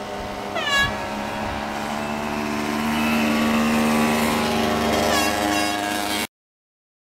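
Speedway motorcycle engines running on the dirt track, revving up briefly twice, with the pitch climbing slowly in between; the sound cuts off suddenly near the end.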